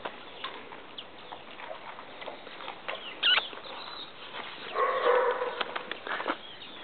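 Dogs moving about a gravel yard: scattered small clicks and scuffs, a short sharp high-pitched call a little past three seconds in, and a louder, longer pitched animal sound, like a dog's whine, from just before five seconds to about six.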